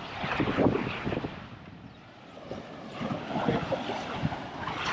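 Wind buffeting the microphone in irregular gusts, easing for a moment about halfway through, over the wash of surf.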